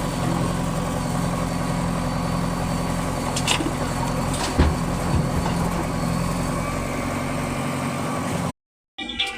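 Heavy diesel engine of a backhoe loader or dumper running steadily, with two short knocks about three and a half and four and a half seconds in. The engine sound cuts off abruptly near the end.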